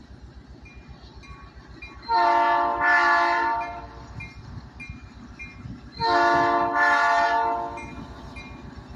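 Horn of the Tulsa-Sapulpa Union Railway's EMD GP-series diesel locomotive no. 111 sounding in two long blasts, one about two seconds in and another about six seconds in, over the low rumble of the approaching engine.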